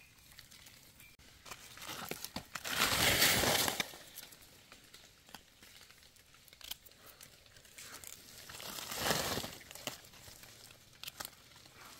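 Dry leaf litter rustling and crackling as hands pull a mushroom from the forest floor, in two louder bursts about three seconds in and again around nine seconds, with small crackles between.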